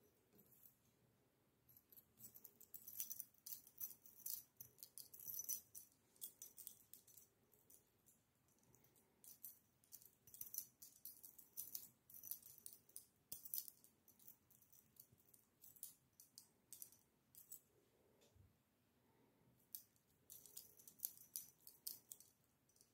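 Metal keys on a key ring jingling and clinking in irregular bursts as kittens bat and paw at them.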